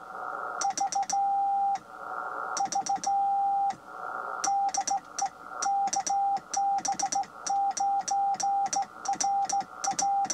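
Morse code (CW) received on an ICOM IC-705 transceiver: a steady beeping tone keyed by hand from a homebrew low-power CW transmitter. It opens with di-di-di-dah letter V's, then runs into a longer string of characters. Each element starts and stops cleanly with a sharp click, and receiver hiss fills the gaps. The keying is nice and quick, and clean.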